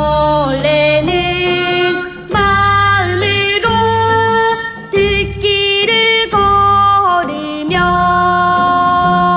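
Korean gugak-style children's song: a single child's voice sings the melody in long held notes over instrumental accompaniment with sustained bass notes.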